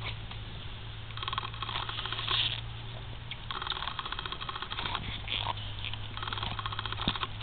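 A dog tearing and chewing the green husks off an ear of fresh sweet corn: crackly rustling and ripping of the leaves in several short bursts, over a steady low hum.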